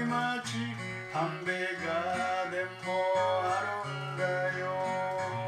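Yamaha EZ-EG digital guitar played: an instrumental melody line with some bending notes over held low bass notes that change about once a second.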